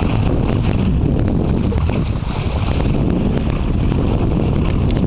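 Steady wind rumbling on the microphone, over the wash of the sea around a sailing yacht under way.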